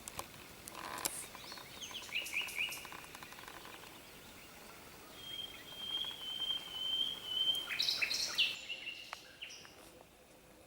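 Wild songbirds singing in woodland: a few short high chirps, then a long thin high trill held for a couple of seconds, then a quick cluster of sharp calls.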